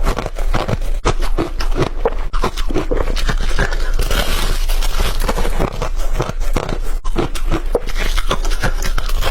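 White ice being bitten and chewed, a dense run of sharp crackling crunches.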